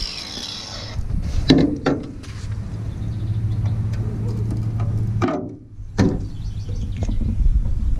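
Cut pieces of sheet steel being handled on a rusted steel truck-bed floor: a few sharp metallic knocks and scrapes over a low steady hum.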